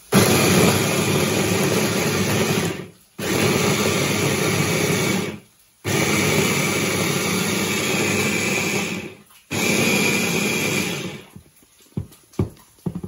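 Electric mini food chopper running in four short pulses, the first three about two to three and a half seconds each and the last fading out, with brief pauses between, as it chops onion, tomato, chilli, ginger and garlic into a paste. A few light knocks near the end.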